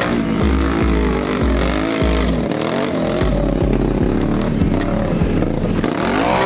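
ATV engine revving hard and repeatedly, its pitch rising and falling as the throttle is worked in deep mud, with a deep thump repeating about twice a second underneath.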